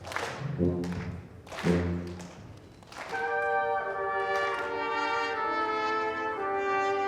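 Brass ensemble playing: a few short, accented chords in the first three seconds, then held, sustained chords from about three seconds in.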